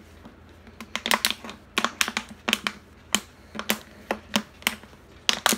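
Scissors cutting into a thin plastic water bottle, the plastic giving sharp, irregular clicks and crackles a few times a second, starting about a second in.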